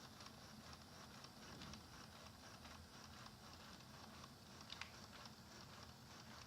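Faint, steady low hum with scattered light ticks: a Neato XV-21 robot vacuum running at a distance.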